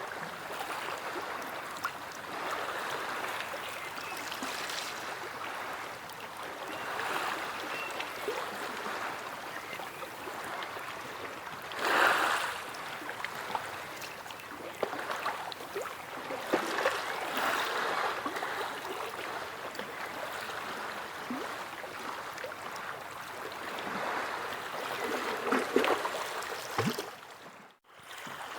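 Sea waves washing in and breaking: a continuous hiss of surf that swells and eases every few seconds, with one louder wave about twelve seconds in. Near the end the sound drops out for a moment and comes back.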